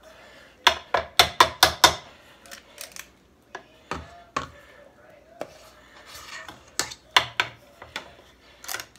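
Small portion scoop clicking and knocking against a stainless mixing bowl and a metal muffin tin as batter is scooped and dropped into the cups. The clacks come in quick clusters: about six around one second in, two near four seconds, and several more toward the end.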